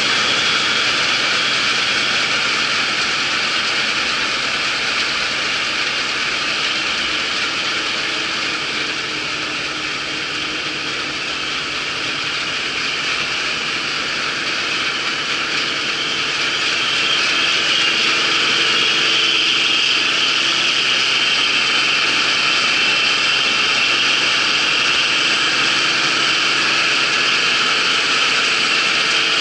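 Claas Dominator 88 combine harvester running steadily under harvest work. It eases off slightly, then grows louder again a little past the middle.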